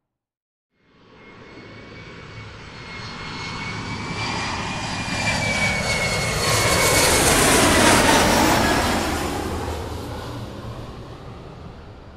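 Airplane flying over: after a moment of silence the engine sound swells in, peaks about eight seconds in as it passes, and fades away, with a steady whine that drops in pitch as it goes by.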